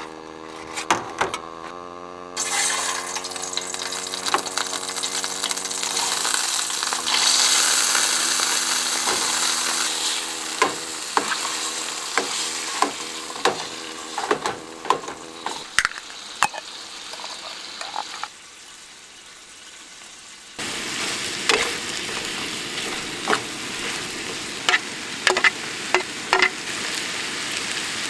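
Diced ham and corn sizzling in a frying pan on a gas camping stove, with a spoon clinking and scraping against the pan as the food is stirred and more ingredients are added. The sizzle starts about two seconds in.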